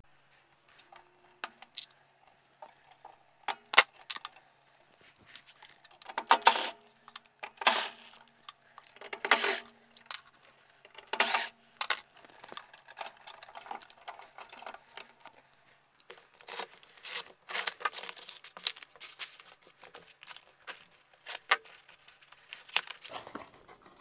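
Hand work on a gas furnace's valve and wiring: scattered sharp clinks and clatters of small metal parts and tools, several of them loud and ringing briefly. In the second half comes a few seconds of dense rustling, then a few more clicks near the end.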